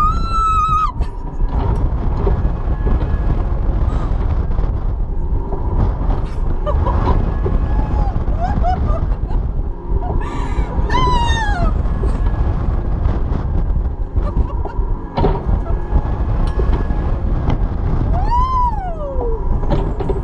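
Low wind rumble on a ride-mounted microphone as a swinging fairground ride (a Mondlift) carries its rider through the air. Three times a woman shrieks with delight: once right at the start, once about halfway, and once near the end, each cry rising and then falling in pitch.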